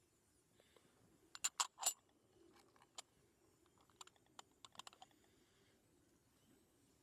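A quick cluster of sharp clicks and taps about a second and a half in, then a single click and a scatter of lighter clicks a few seconds later.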